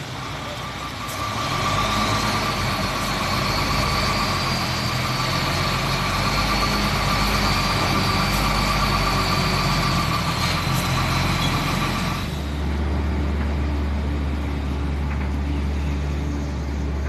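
Diesel engine of an Iveco semi-truck running at low speed as it pulls a trailer in, with a steady high whine over it. About twelve seconds in the whine stops and a deeper, steady rumble takes over.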